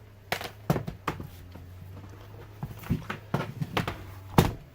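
Scattered knocks and clacks of laptops being handled and set down on a desk, with the loudest thump near the end.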